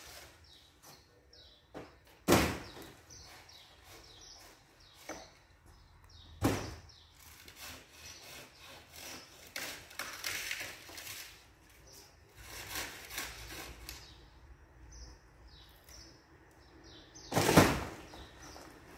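Cut fronds of a Washingtonia filifera palm dropping and striking the ground: sharp woody knocks about two and six seconds in and a louder crash near the end, with softer rustling between. Small birds chirp throughout.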